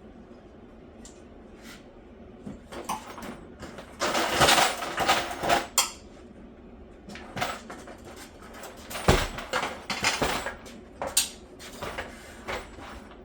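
Tools and metal hardware being handled, with clattering, clicks and a sharp knock about nine seconds in.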